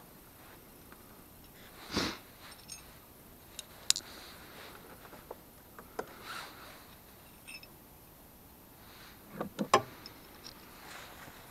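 Scattered metallic clicks and clinks of a socket wrench on a Jeep TJ's battery terminal, with a quick cluster of clinks near the end. A short breathy noise about two seconds in.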